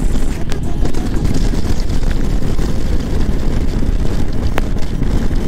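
Royal Enfield Meteor 350's single-cylinder engine running steadily at cruising speed, mixed with wind noise on the microphone.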